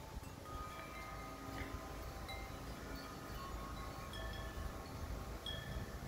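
Metal tube wind chimes ringing in the wind, several tones struck at scattered moments, each ringing on for a second or more and overlapping the next.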